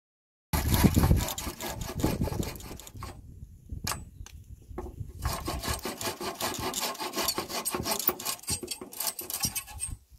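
Steel-framed bow saw cutting through a wooden board, the blade rasping back and forth in repeated strokes. It starts suddenly about half a second in, breaks off for a moment with a few sharp knocks around the middle, then saws on steadily.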